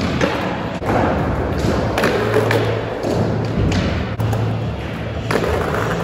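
Skateboard wheels rolling on a concrete skatepark floor, with four sharp board thuds spread through the few seconds.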